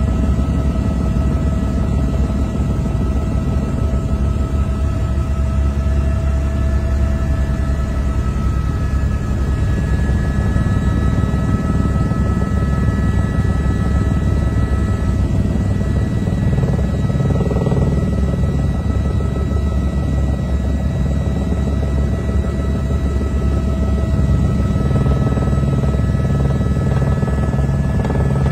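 Helicopter engine and rotor noise heard from inside the cabin: a steady low drone with a constant turbine whine over it.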